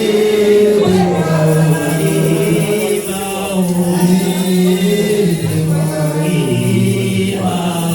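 Voices singing a gospel song together, with long held notes.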